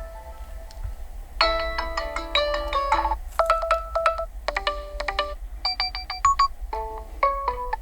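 Nokia G60 5G alarm tone playing through the phone's speaker: a bright electronic melody of quick short notes in phrases with brief pauses, starting a little over a second in, over a steady low hum.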